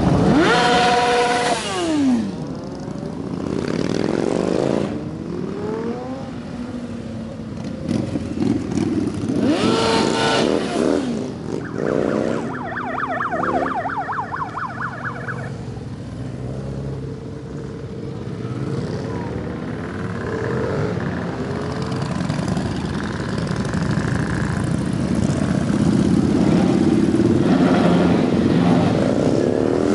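A column of motorcycles, a mix of cruisers and sport bikes, riding past one after another, engines running and revving. Each engine's pitch rises and falls as it passes, with louder swells near the start and about ten seconds in.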